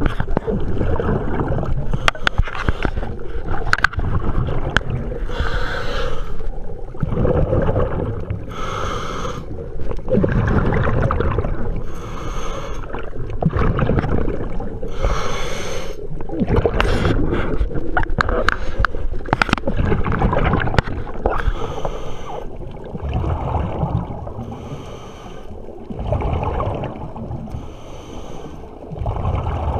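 Scuba diver breathing through a regulator underwater: a hissing breath and a gurgle of bubbles about every three seconds, over a low rumble of moving water, with scattered clicks.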